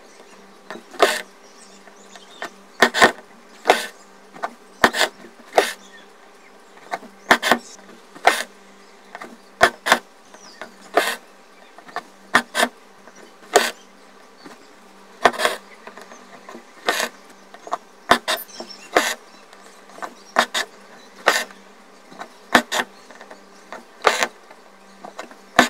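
Hand-embroidery needle pushing through taut fabric and the stranded cotton thread being drawn through. It makes a sharp tick or pop about once a second, at an uneven pace, over a steady faint buzzing hum.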